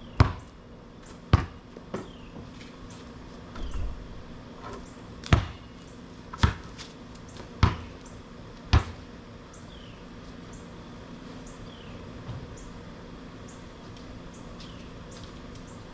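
Sharp knocks, seven of them spaced about a second apart over the first nine seconds, from hand work at the back of a truck. Faint chirping runs underneath throughout.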